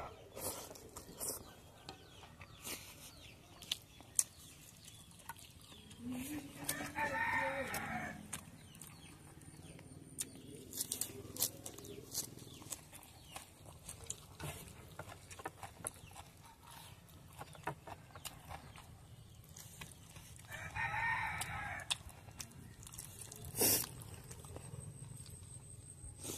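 A rooster crowing twice, once about seven seconds in and again about twenty-one seconds in, each crow lasting around two seconds. Between the crows come scattered sharp clicks and smacks of eating by hand.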